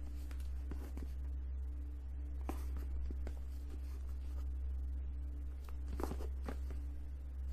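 Light handling noise of a Blu-ray box set being turned over in the hands: a few soft taps and rubs scattered through, over a steady low electrical hum.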